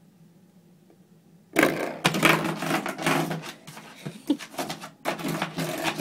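Coiled-spring door stopper knocked by a dog, twanging and rattling over and over in bursts, starting suddenly about a second and a half in.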